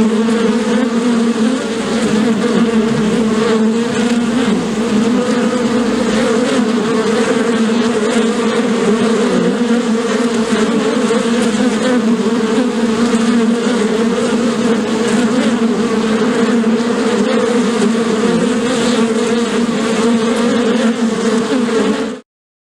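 Bees buzzing in a steady, loud, slightly wavering hum that cuts off suddenly near the end.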